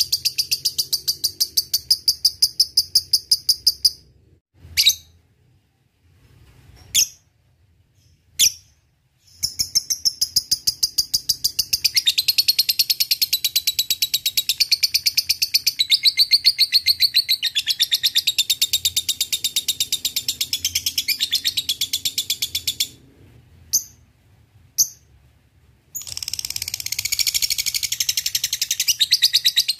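Lovebird giving its long, rapid chattering song (ngekek), a fast run of sharp high notes. Three long runs are broken by pauses holding a few single short chirps.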